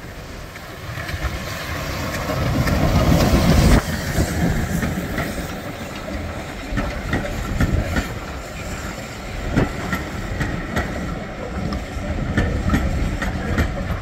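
Steam-hauled passenger train passing close by: the tank locomotive's noise builds to a peak and drops off sharply about four seconds in as it goes past, then the coaches roll by with a clickety-clack of wheels over the rail joints.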